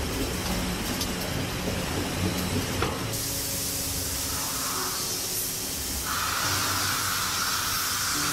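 High-resilience foam moulding machinery running with a low hum and a few knocks, then a steady loud hiss, like air or spray, starting about three seconds in.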